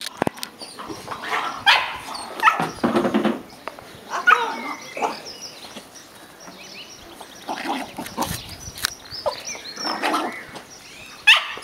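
Dogs barking in short, irregularly spaced bursts as they chase each other in play.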